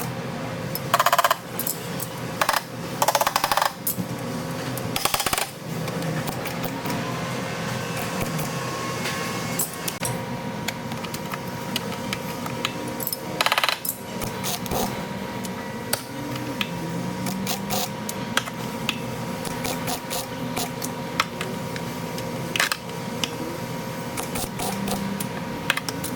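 Car body repair work: scattered metallic clinks and several short bursts of rapid rattling from a tool, over a steady machine hum.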